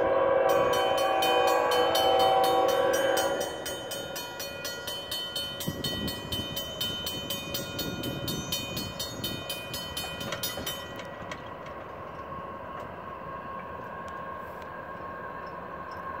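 An approaching freight locomotive's horn sounds one long, loud chord for about three seconds, while a grade-crossing warning bell rings steadily. The bell carries on after the horn stops and fades about eleven seconds in.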